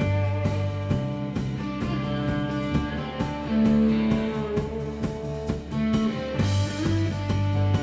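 Surf rock music with electric guitar over a drum kit keeping a steady beat.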